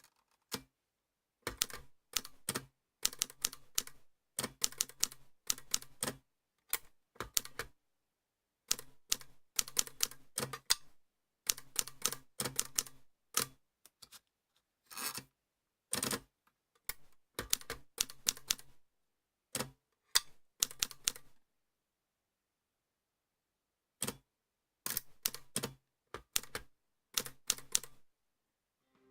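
Olivetti Lettera 35 manual portable typewriter being typed on: sharp key strikes in quick runs of a few letters, broken by short pauses and one longer pause about three quarters of the way through.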